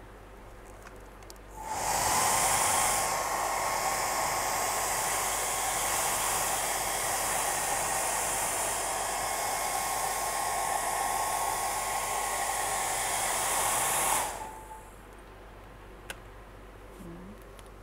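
Handheld heat gun blowing hot air over wet epoxy resin to pop surface bubbles: a steady hiss with a faint whine. It starts about two seconds in, runs for about thirteen seconds and cuts off.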